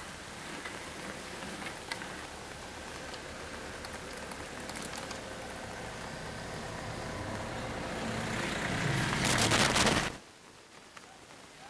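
A motor vehicle passing on a rain-wet road: tyre hiss and engine noise swell over several seconds, are loudest just before ten seconds in, then cut off suddenly.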